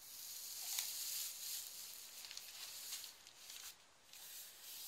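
Dry straw packing rustling as it is handled and pulled out of a wicker hamper: a soft, continuous rustle that eases off briefly about three seconds in.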